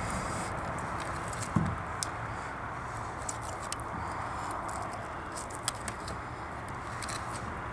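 Boning knife cutting meat away from the inside of a snapping turtle's shell, with a few small ticks and clicks of the blade against shell and bone over a steady background hiss.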